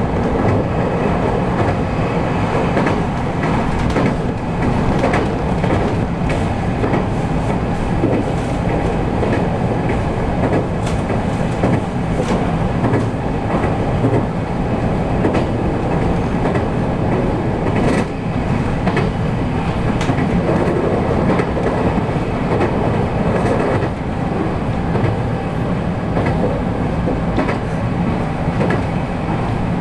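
JR 223 series electric train running at speed, heard from inside the car: steady rumble of wheels on rail, with scattered sharp clicks as the wheels pass over rail joints.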